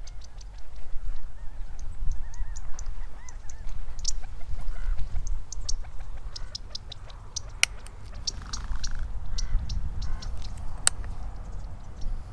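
Footsteps and dry sagebrush scraping against clothing and the shotgun while walking through brush, heard as a run of crisp rustles and ticks over a steady low rumble, with two sharper snaps about seven and a half and eleven seconds in.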